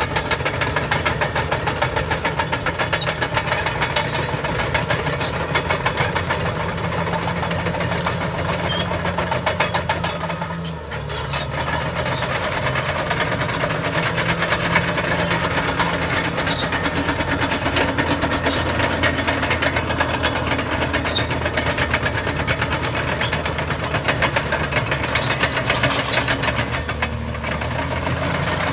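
Caterpillar D6T crawler bulldozer's diesel engine running steadily under load as the dozer pushes soil and brush, with occasional clicks over it. The engine note dips briefly about eleven seconds in, then picks up again.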